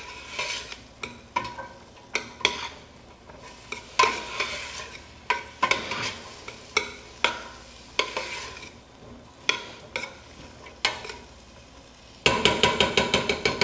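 A utensil stirring and scraping onions and garlic in a stainless steel stockpot, each stroke clinking and ringing briefly on the metal. Under it is a faint sizzle of the onions and garlic sweating in oil over medium heat. Near the end comes a quick run of faster strokes.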